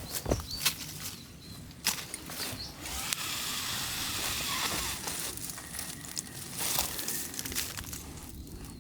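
Bonfire being lit and tended: sharp snaps and crackles of twigs and wood, then a steady hiss for about three seconds in the middle.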